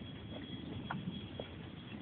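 Faint footsteps on a wet paved path: a couple of soft taps over low background noise.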